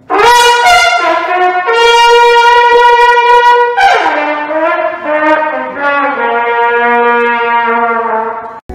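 Solo trumpet playing a slow phrase of long held notes, one of them held for about two seconds; it cuts off abruptly near the end.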